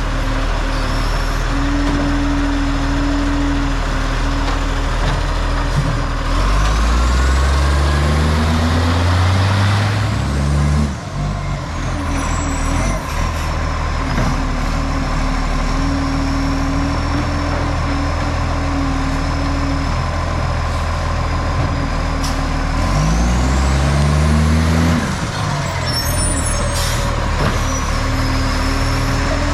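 Garbage truck's diesel engine running with an exhaust leak. It revs up twice, once for about four seconds and later for about two, dropping back to idle each time.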